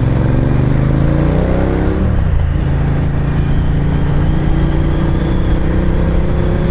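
Ducati Diavel's L-twin engine pulling under way, its pitch rising for about two seconds, dropping sharply, then climbing slowly again.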